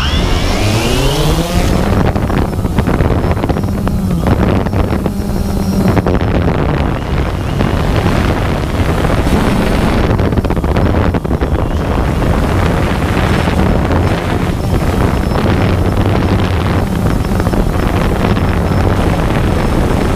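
Multirotor drone's motors and propellers spinning up for takeoff, a rising whine over the first second or so, then a steady loud buzz as it climbs and hovers, with wind noise on the onboard microphone.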